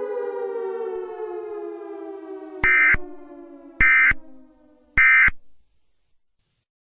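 An electronic drone slides slowly down in pitch and fades out. Over it come three short, shrill data bursts about a second apart, the end-of-message tones that close an Emergency Alert System broadcast.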